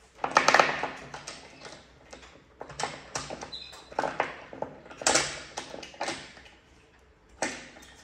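Domino tiles clattering against each other and a wooden box as a monkey rummages through them: bursts of rattling clicks every second or so, loudest about five seconds in.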